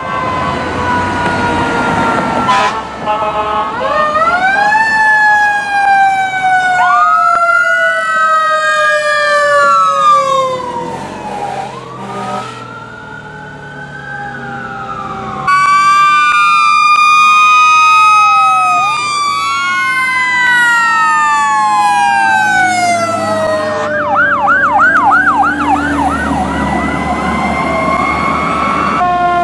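Sirens of responding fire and rescue vehicles, several wailing at once with their rising and falling pitches crossing each other. About halfway the sound changes abruptly and gets louder. Near the end one siren switches to a fast yelp.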